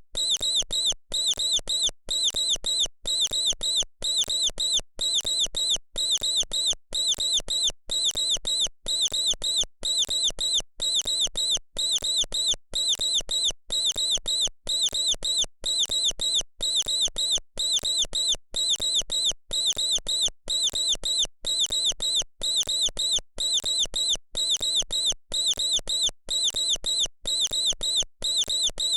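Mouse squeaking: short, high-pitched squeaks in quick groups, repeating in an even, looped rhythm of about one and a half groups a second.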